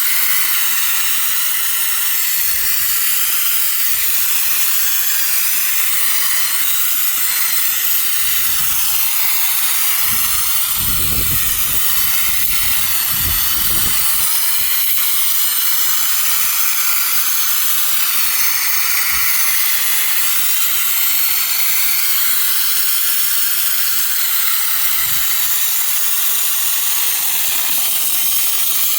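Compressed-air spray gun hissing steadily as it sprays thick Lizard Skin sound-insulation coating. A couple of low rumbles come around the middle.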